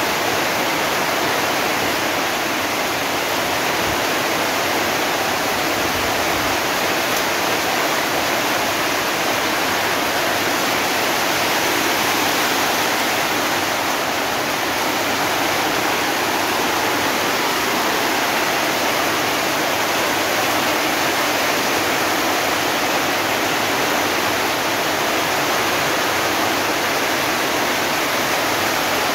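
Heavy monsoon rain pelting corrugated metal roofs and muddy ground, with water streaming off the roof edges: a dense, steady rush that doesn't let up.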